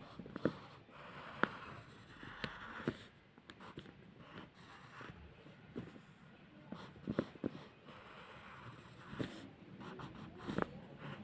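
Pencil scratching on paper as lines are drawn, in short strokes with scattered light ticks.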